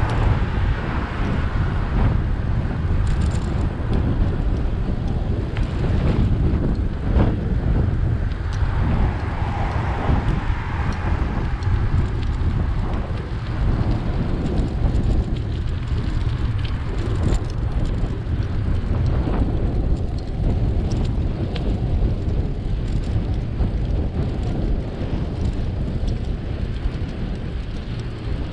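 Steady wind rush on the microphone of a moving bicycle, mixed with road noise.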